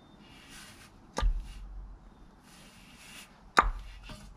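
Two sharp knocks about two and a half seconds apart, each with a dull thud, between short bursts of rustling, as hands work at a spark plug wire in a car's engine bay.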